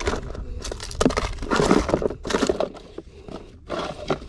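Hand rummaging through a plastic tackle box: plastic packets and bags crinkling and small gear rattling against the box in irregular bursts.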